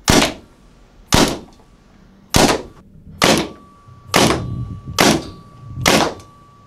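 Tippmann paintball marker firing Atomic Pickle rounds one shot at a time, seven sharp pops about a second apart, each with a short ringing tail.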